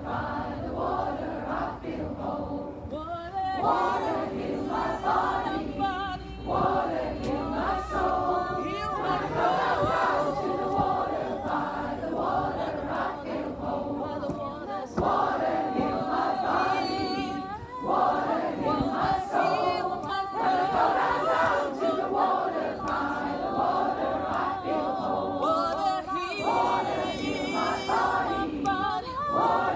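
A large massed choir of over 120 voices singing together, with long held notes.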